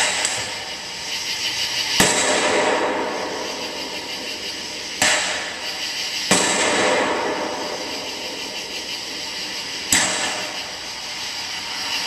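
Aerial firework shells bursting: four sharp booms, about two, five, six and ten seconds in, each trailing off in a long rolling echo.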